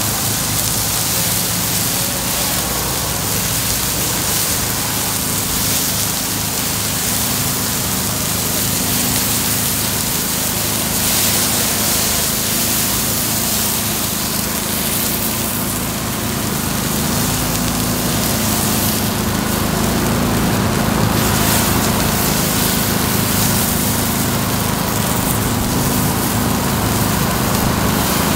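Takoyaki batter sizzling in a hot takoyaki griddle, a steady rain-like hiss with a low steady hum underneath.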